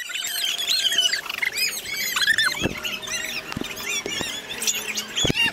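A group of children shrieking and squealing at once: many short, high-pitched overlapping cries, with a few dull knocks in between.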